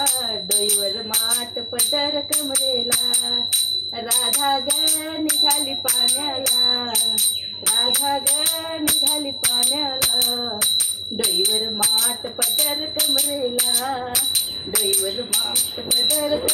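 A Marathi devotional gavlan being sung over a steady, jingling metallic beat of about four strokes a second.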